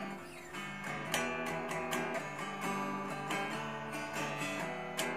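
Gretsch G2420T Streamliner hollow-body electric guitar being picked in a steady run of notes and chords. The strings are out of tune: the guitar needs tuning up.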